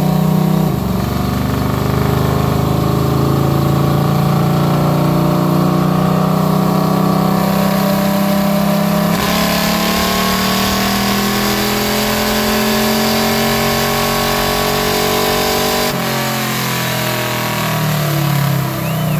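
Off-road pickup's engine running hard under load on a chassis dynamometer, its pitch climbing steadily with a step about nine seconds in. About sixteen seconds in the throttle comes off and the engine note falls away.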